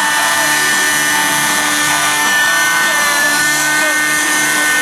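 A radio-controlled model helicopter with a small glow-fuel (nitro) engine flying overhead, giving a steady high-pitched whine that wavers slightly in pitch.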